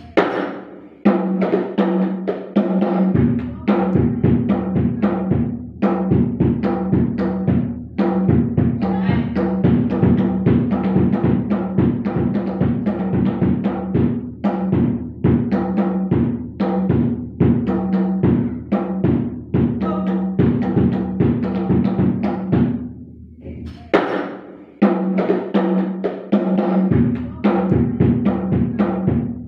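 Hadroh frame drums led by the tam, hand-struck in a fast repeating variation rhythm, with a deep low drum beat joining about three seconds in. The playing breaks off about 23 seconds in and starts again a second later.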